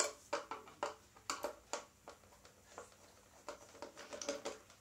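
Irregular sharp plastic clicks and knocks as the suction fan motor is worked out of a robot vacuum's plastic housing by hand, busiest in the first two seconds, then sparser taps and rustling.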